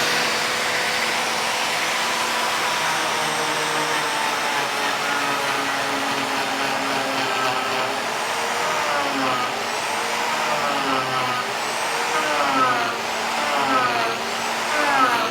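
Electric power tool motor running steadily with a constant whine and hiss, as used in shaping a wooden bowl. In the second half, a wavering voice-like melody rises and falls over it.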